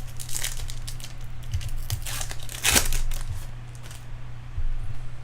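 Wrappers of 2011 Bowman Chrome baseball card packs crinkling and tearing as a pack is opened. There are two brief louder bursts, about half a second in and near the three-second mark.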